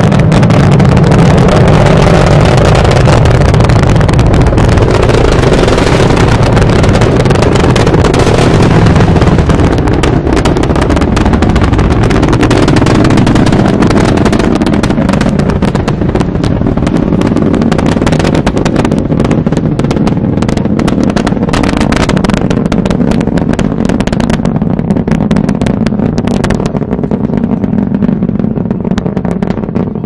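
Space Shuttle Atlantis's launch roar heard from about three miles away: a loud, deep rumble with dense crackling from the solid rocket boosters and main engines. It fades slowly over the last several seconds as the shuttle climbs away.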